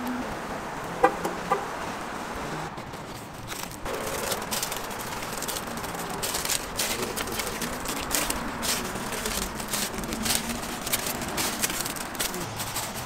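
Metal tongs clink twice, sharp and ringing, about a second in; then a metal spatula taps and scrapes repeatedly on a flat-top griddle, over a steady sizzle of egg-topped toast frying.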